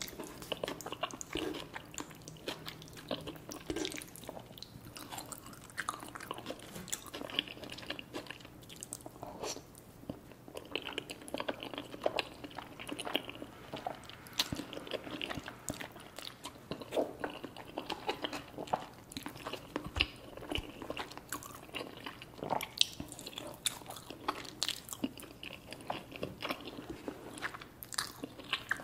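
Close-miked eating sounds: a person chewing and biting into creamy alfredo pasta and chicken wings, a continuous irregular run of small wet clicks and crunches.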